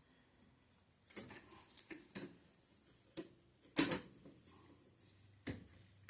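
Scattered clicks and knocks of plumbing tools and fittings being handled while a shut-off valve is fitted, with one sharper knock about four seconds in.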